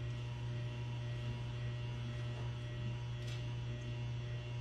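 Steady low electrical mains hum, an unchanging drone with no other sound over it.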